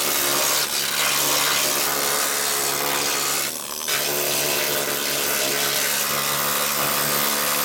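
Small pen-shaped handheld power tool running against a car's underbody sheet metal, cleaning grime and old coating out of a spot in the transmission tunnel that a wire brush can't reach; it pauses briefly about three and a half seconds in.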